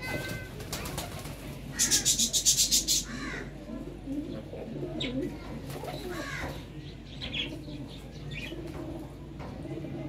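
Fantail pigeons cooing, with a loud burst of rapid wing flapping lasting about a second, a couple of seconds in.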